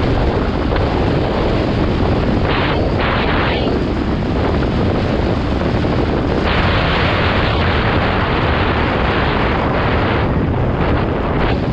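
Wind buffeting the microphone of a GoPro Hero 7 Black mounted on a mountain bike going downhill, with the tyres and bike rumbling and rattling over the trail.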